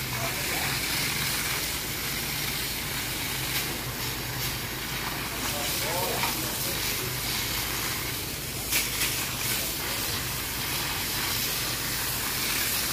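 Jet of water from a fire hose hissing steadily as it sprays onto and washes a wet asphalt road, with a steady low hum underneath.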